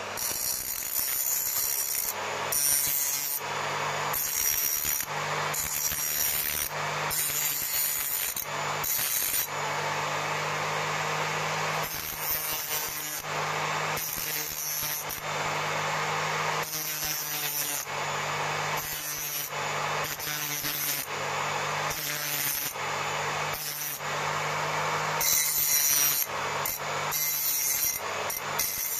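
Bench grinder motor running with a steady hum while a Honda CD175 fork leg is pressed against its fine non-woven abrasive wheel, giving repeated spells of abrasive scuffing every second or two. The tube's surface is being keyed for new paint.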